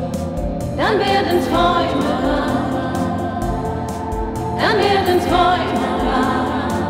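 Pop song with a steady electronic beat under choir-like wordless singing. A quick rising swoop comes about a second in and again near five seconds in.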